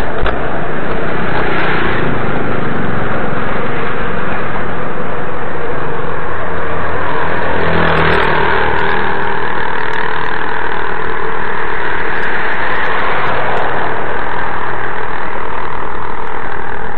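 Motorbike engine running with road and wind noise, picked up by a camera riding on the bike; steady and loud, shifting slightly about eight seconds in.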